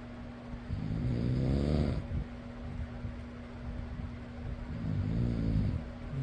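A person snoring twice, each snore lasting over a second and about four seconds apart, over the steady hum of a fan.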